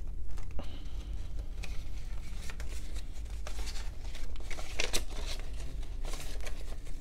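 US paper banknotes handled and counted by hand: bills rustling and crackling in irregular short strokes as they are pulled out and flipped apart one by one.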